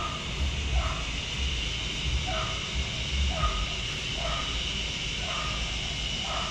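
A dog barking over and over, one to two short barks a second, over a steady hiss.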